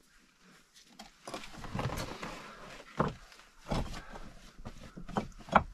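Shoes scuffing and scraping on rough lava rock as someone clambers down through boulders, with a few sharp knocks of feet or gear against rock. The loudest knock comes near the end.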